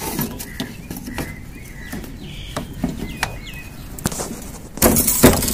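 Birds chirping a few times, with light knocks and clicks of handling, then a loud rasping noise near the end.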